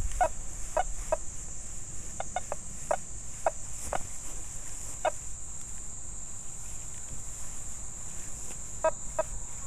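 Nokta Fors Core metal detector giving short, clipped target beeps as the coil sweeps over a rusty nail with a dime buried beneath it, under full discrimination. About nine blips come in the first five seconds, then a pause, then two more near the end: a broken 'bet bet' signal, not yet a solid repeating one.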